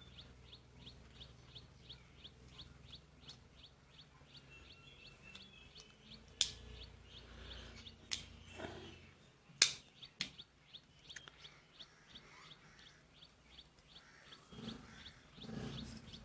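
Several sharp clicks from the small parts of a drill's trigger switch being handled and fitted back together, with the loudest click a little past the middle. Under them a bird chirps steadily, about three short chirps a second.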